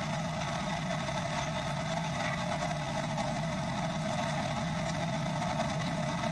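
Steady drone of an airliner in flight, heard from inside the passenger cabin: jet engine and airflow noise.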